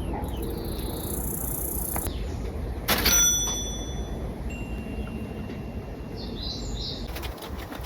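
A single metallic clink about three seconds in that rings briefly with a bell-like tone, over low background noise; a short chirp follows a few seconds later.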